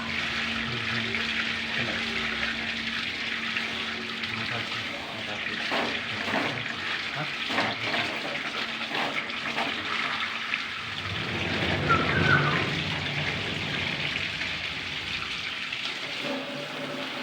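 Water running steadily from a tap or pipe fitting, with a few short knocks about midway.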